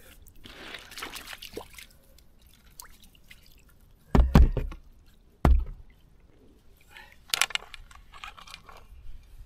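Splashing and dripping river water as a small perch is drawn in at the water's edge and scooped into a landing net, with splashes about a second in and again near the end. Two loud knocks come in the middle as the landing net's pole is handled close by.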